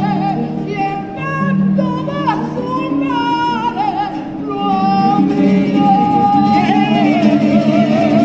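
An Andalusian choir of mostly women's voices sings a melody with vibrato, accompanied by strummed nylon-string Spanish guitars.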